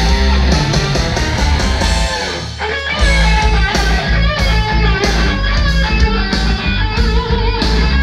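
Rock music with electric guitar played loud through a PA system of Cerwin-Vega full-range speakers over subwoofers, with the bass crossed over at 70 Hz. The deep bass drops out briefly about two and a half seconds in and comes back strongly at three seconds.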